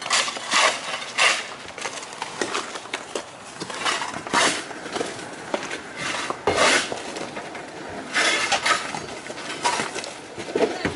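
Old roof covering being torn and scraped up by hand: a run of short scraping and tearing strokes, some louder than others.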